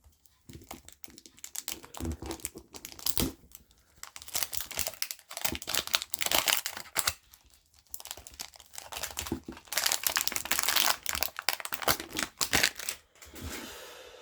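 Packaging of a new speedcube being unwrapped: crinkling and tearing in irregular crackly bursts, busiest in the second half.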